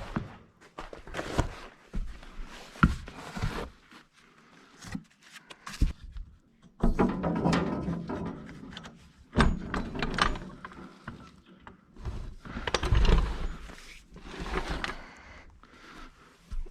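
Wooden blocks being knocked and wedged into place under a machine: irregular thunks and knocks with stretches of scraping and shuffling.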